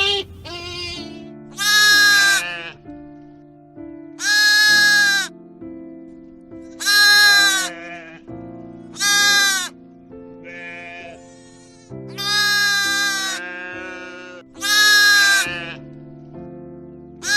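Livestock bleating: about six loud, drawn-out bleats two to three seconds apart, with a couple of fainter bleats between them, over background music with sustained chords.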